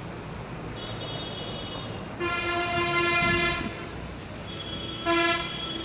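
A vehicle horn sounds twice: one long blast of about a second and a half, then a short toot about three seconds later.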